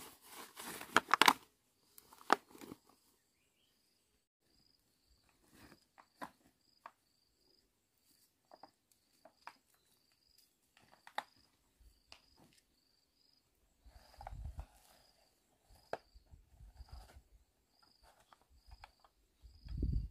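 Woven plastic sack rustling and crinkling as wild figs are packed into it, loudest in the first second or so, then scattered snaps and rustles of movement through dry undergrowth. An insect chirps faintly and evenly, about twice a second, throughout, and there are a couple of low thumps near the end.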